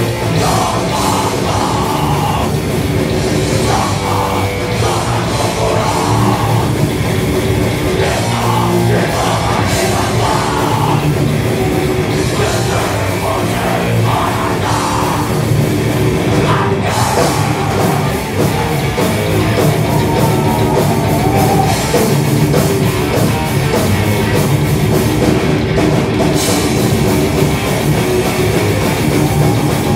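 Thrash metal band playing live: distorted electric guitars and bass over a drum kit, loud and continuous.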